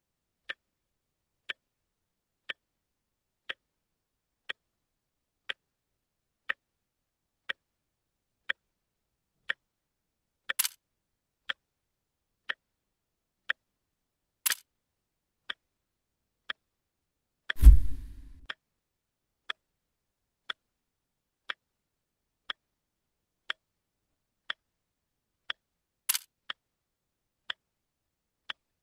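Clock ticking evenly about once a second, with a few sharper clicks mixed in and one heavy thump a little past the middle.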